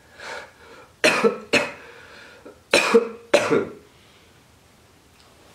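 A man coughing four times, in two pairs, after a soft breath or throat sound. It is a leftover cough from a sore throat that has not yet fully healed after the illness that cost him his voice.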